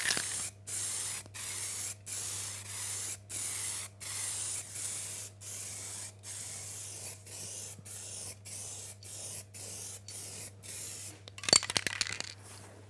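Aerosol spray can of heat-resistant radiator paint hissing in short repeated bursts, about two a second, as a radiator is spray-painted silver-grey. The spraying stops about a second before the end, followed by a few clicks.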